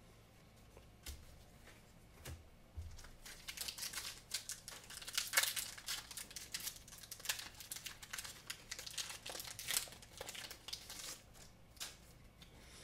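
Foil booster pack wrapper being torn open and crinkled: a few light ticks, then from about three seconds in a long run of dense crinkling and rustling.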